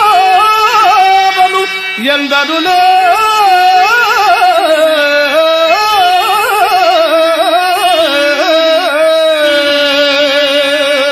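A man singing a Telugu drama verse (padyam) through a microphone and PA, in long held notes that waver and bend in pitch with melismatic ornaments.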